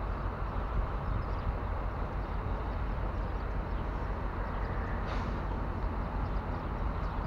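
Steady low rumble and hiss of outdoor background noise, with a brief higher hiss about five seconds in.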